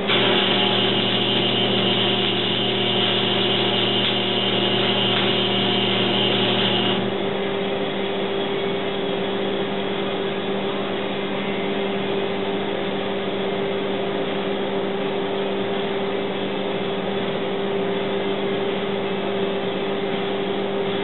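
An electric welding arc crackles and hisses steadily for about seven seconds while a weld is laid on the snowblower's steel cab frame, then cuts off abruptly. A steady electrical hum carries on underneath throughout.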